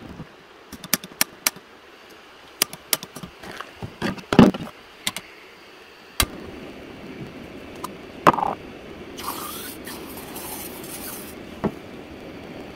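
Metal clicks and knocks as a gas-canister camping stove is handled and a pan is set on it, then about six seconds in a steady rushing starts, the burner running, with a few more clicks and a brief higher hiss over it.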